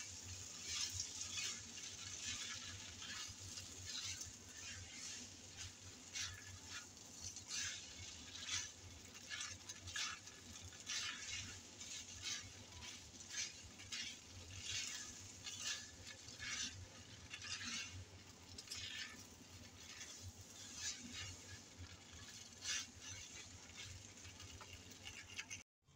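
A plastic spatula stirring and tossing spaghetti with meat sauce in a nonstick frying pan: repeated soft scraping strokes, about one or two a second.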